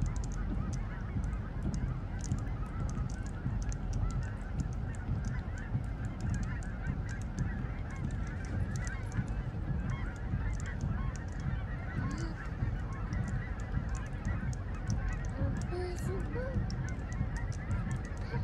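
A large mixed flock of snow geese and Canada geese calling, a continuous chorus of many overlapping honks.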